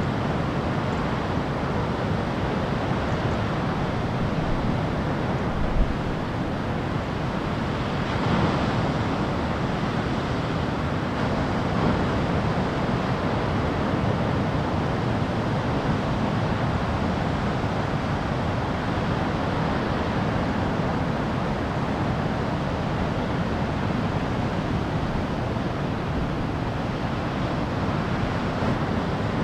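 Steady noise of ocean surf breaking, with wind on the microphone and a brief thump about six seconds in.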